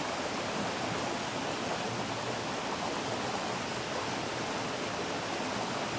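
Double-walled alcohol stove burning steadily under a pot of water heating toward a boil: an even, unbroken hiss.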